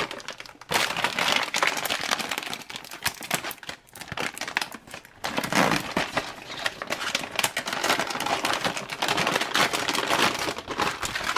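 Thick plastic outer bag of a military field ration crinkling and crackling as it is handled and pulled open, with a short pause about four seconds in.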